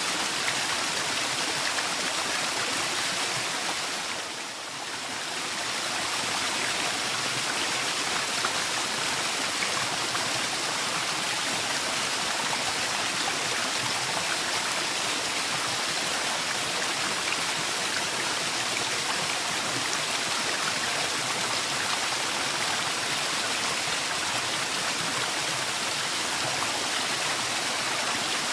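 Waterfall: a steady rush of falling water that dips briefly about four and a half seconds in.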